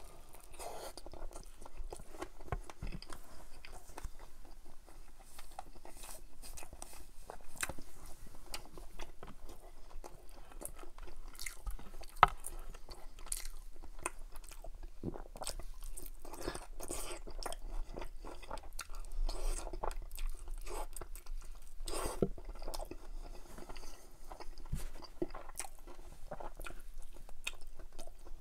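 Close-miked chewing and crunching of a crispy-skinned fried chicken drumstick in butter chicken sauce: bites, crackles and mouth sounds, with one sharper click about twelve seconds in.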